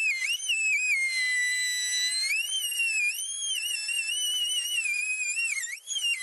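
Dremel rotary tool cutting through a golf cart's plastic front cowl: a high whine that wavers up and down in pitch as it cuts, with a brief drop-out near the end.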